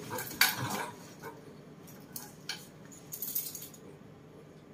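Scattered short rustles and light clicks: a cluster in the first second, then a few more around two to three and a half seconds in.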